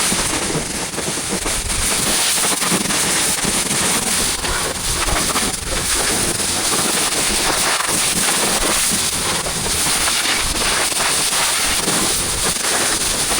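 Pressure-washer water jet blasting silage residue off the metal side of a forage wagon: a loud, steady, hard hiss with irregular spattering crackle as the spray hits the panels.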